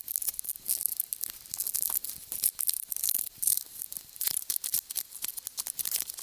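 Termites and ants crawling and chewing: a dense, irregular crackle of fine clicks and scratchy rasps, mostly high-pitched, swelling into brief louder flurries.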